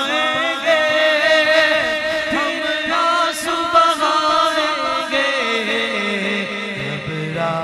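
Two male reciters singing a naat over a public-address system: a long, ornamented unaccompanied vocal passage. A low held note comes in about two-thirds of the way through.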